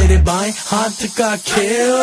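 Punjabi pop song: the heavy bass beat drops out just after the start, leaving a sliding vocal line over a thin, hissy backing.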